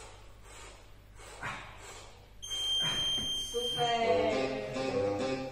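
A single long, high electronic beep, about a second and a half, from a Tabata interval timer marking the switch between work and rest. Pitched workout music with a steady beat starts as the beep ends.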